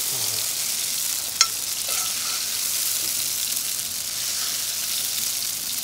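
Chicken breasts frying in butter and sherry vinegar in a cast-iron skillet, a steady sizzle. A single sharp clink comes about a second and a half in.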